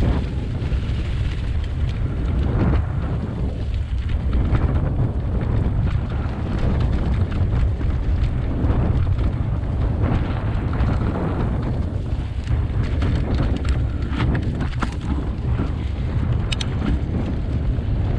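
Canyon Spectral mountain bike riding down a dirt singletrack strewn with dry leaves: wind buffeting the mounted camera's microphone as a heavy rumble, over the rough noise of tyres rolling on dirt and leaves. Several sharp clicks and rattles come about three-quarters of the way through.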